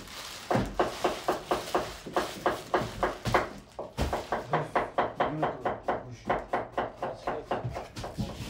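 Fast, even chopping on a wooden board, about five strokes a second, with a brief pause about four seconds in.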